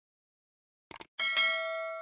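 A bell chime strikes once, a little over a second in, right after a couple of quick clicks, and rings on, slowly fading.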